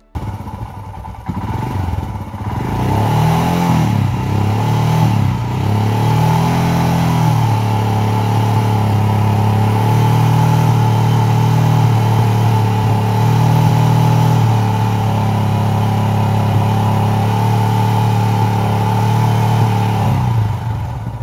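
Royal Enfield Himalayan's single-cylinder engine running, revved up and down over the first few seconds, then held at a steady raised speed.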